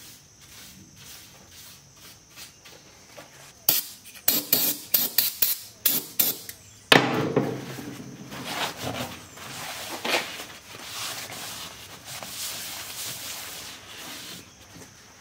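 A quick run of sharp clicks about four seconds in. Then a shop towel rubs and wipes over the steel floor of a tractor loader bucket, cleaning off drill shavings.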